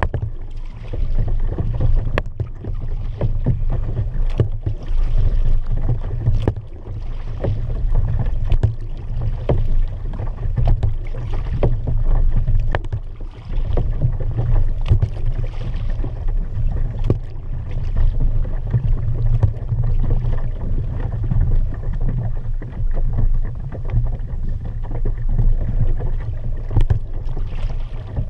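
Kayak being paddled, the paddle dipping into the water roughly every two seconds over a steady low rumble.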